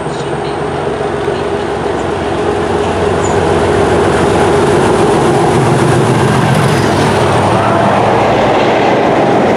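Diesel-hauled train approaching and passing close by a station platform: a Class 37 diesel locomotive's engine grows louder as it nears, with a second diesel locomotive coupled behind, and the sound stays at its loudest through the second half as the locomotives run past with wheels clattering on the rails.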